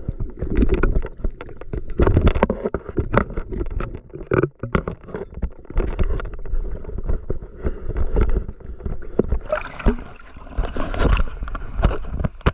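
Water splashing and sloshing in irregular bursts, turning hissier near the end.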